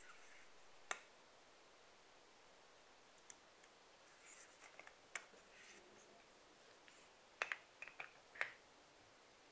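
Faint, scattered clicks of a ring tool and plastic parts against a PVS-14 night vision monocular housing as the objective lens stop ring is threaded on and tightened, with a small run of clicks near the end; otherwise near silence.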